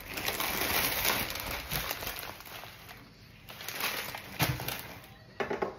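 Plastic grocery bags and packaging rustling and crinkling as groceries are handled and unpacked, in two spells with a few light knocks of items being set down.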